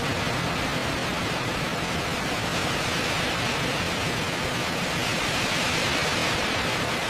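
Steady, even rushing noise with no distinct tones that cuts off abruptly at the very end.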